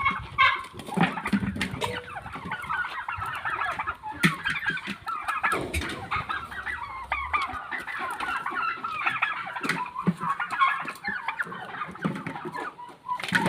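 A flock of chickens clucking and calling, many birds at once and overlapping, with a few sharp knocks among the calls.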